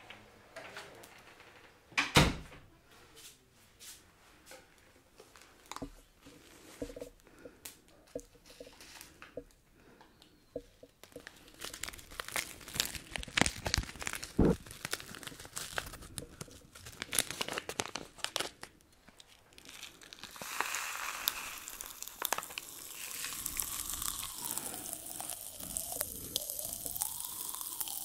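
A few scattered knocks, with a loud thump about two seconds in. Then a Pop Rocks candy packet is crinkled and torn open close to the microphone. In the last third comes a steady crackling fizz of Pop Rocks popping in a mouth held right at the mic.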